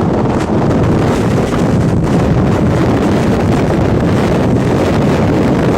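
Strong wind buffeting the microphone: a loud, steady rush of noise.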